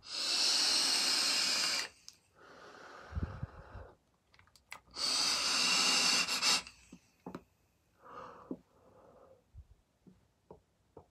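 Two long hissing draws on a handheld vape, each about two seconds, with a quieter breath between them, then a softer exhale of the vapour. Faint ticks, about two a second, come in near the end.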